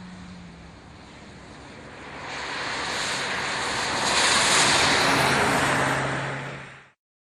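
A car driving past with tyre and road noise and a low engine hum, swelling to a peak and then cutting off suddenly near the end.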